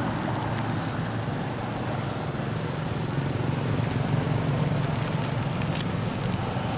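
Steady low rumble of a vehicle engine running, with a light hiss over it.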